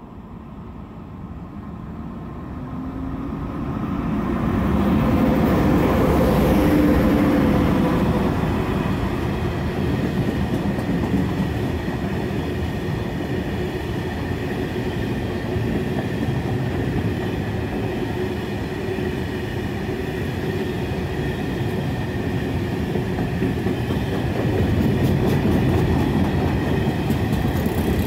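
An ET42 twin-section electric freight locomotive approaches and passes, growing louder over the first several seconds with a humming tone from its machinery that shifts in pitch as it goes by. A long train of Talbot hopper wagons then rolls past with a steady rumble and wheel clatter.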